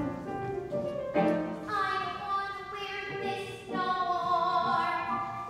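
A girl's solo singing voice holding long notes of a show tune, with piano accompaniment.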